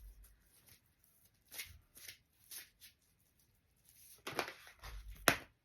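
Tarot cards being shuffled and handled: a few short rustles, a quick flurry about four seconds in, and a sharp card snap near the end.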